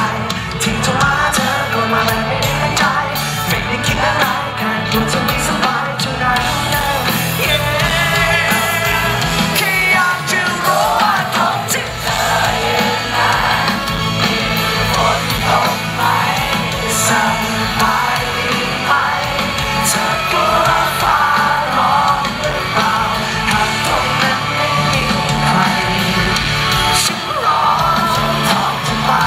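Live band music with a male lead singer singing into a microphone over the amplified band.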